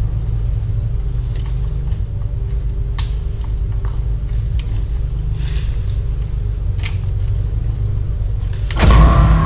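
An engine running steadily with a low rumble and a few light clicks over it. It turns suddenly louder just before the end.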